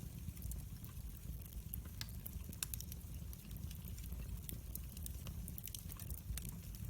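Wood fire burning in a fireplace: a low steady rumble of the flames with irregular crackles and pops, a few louder snaps among them.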